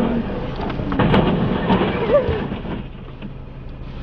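A heavy truck crashing into cars: a loud impact about a second in, with several sharp cracks and crunches that die away over the next two seconds. A voice cries out in the middle of it.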